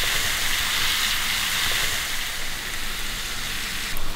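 Cod fillets sizzling steadily in a hot frying pan, with a brief click near the end.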